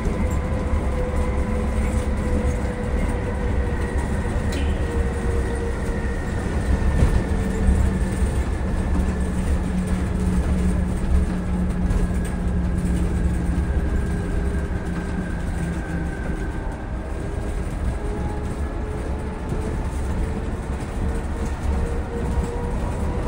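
Tateyama Tunnel Trolleybus running steadily through its tunnel, heard from inside the cabin: a continuous low rumble of the rolling bus with a steady electric whine of several tones that drift slightly in pitch.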